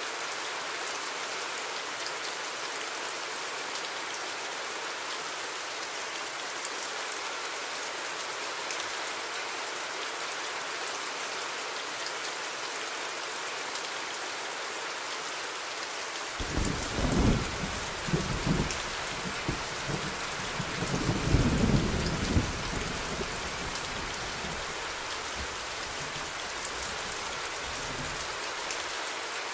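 Steady rain hissing, with a roll of thunder rumbling in about halfway through, swelling twice and then dying away.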